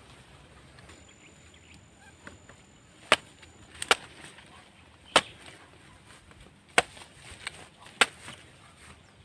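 A large knife chopping into the husk of a young green coconut (buko): a series of sharp chops about a second apart, beginning about three seconds in.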